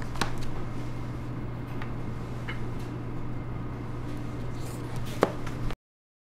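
A few light clicks and knocks from a leather bill folder being handled on a desk, over a steady low hum of room tone, the loudest knock near the end. The sound then cuts off abruptly to silence.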